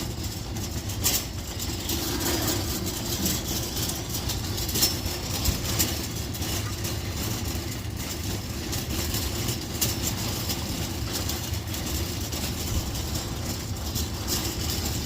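Shopping cart rolling across a parking lot, a steady rumble of its wheels with scattered rattling clicks.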